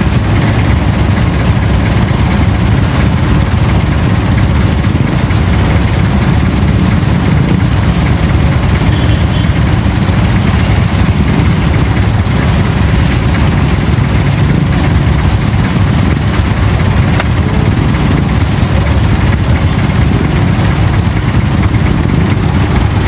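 Vehicle engines idling in stopped traffic: a steady low rumble, including the motorcycle and the jeepney alongside it.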